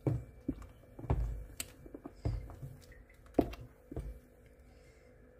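A spoon knocking against the sides of a stainless steel pot while stirring soup, a series of irregular sharp taps and knocks.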